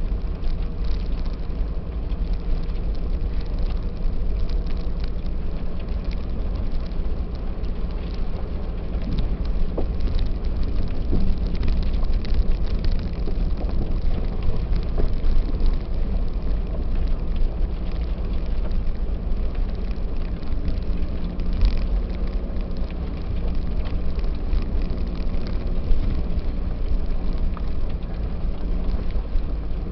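Cabin noise of a Subaru Outback driving slowly on a snowy gravel trail: a steady low rumble of engine and tyres, with scattered light ticks and crackles throughout.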